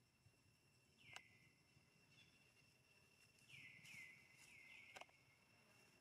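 Faint outdoor ambience: a steady high insect drone, with several short chirps that fall in pitch, most of them bunched in the second half, and two faint clicks.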